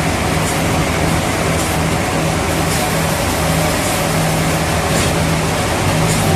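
Sawmill machinery running steadily: a constant engine-like hum under a loud, even noise, with faint light ticks about once a second.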